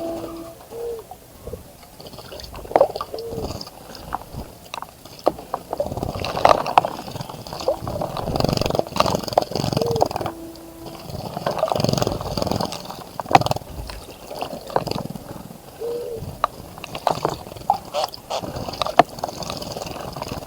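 Birds bathing in a bird bath: water splashing in irregular bursts with sharp flicks and drips, heaviest in the middle stretch. A short, low call sounds several times.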